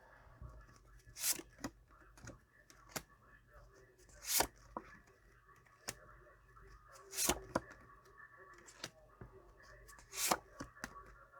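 Tarot cards being handled and laid out on a table: four sharp card slaps or snaps, about one every three seconds, with lighter clicks and faint rustling between them.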